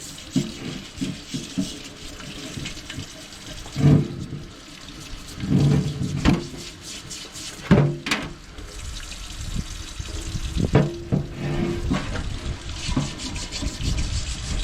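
Running water rinsing Evaporust off rusty pipe wrenches, splashing over the metal, with irregular knocks and clatters as the wrenches are handled under the stream.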